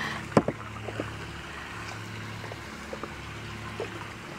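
Paddle strokes with an Oru Lake folding kayak: a few light knocks and splashes of the paddle against the water and hull, the sharpest about half a second in, over a steady low hum.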